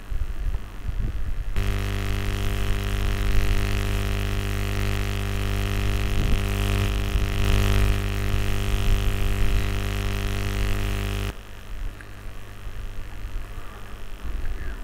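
A loud, steady electrical buzzing hum with many even overtones starts about a second and a half in and cuts off suddenly near the end, leaving a fainter low hum.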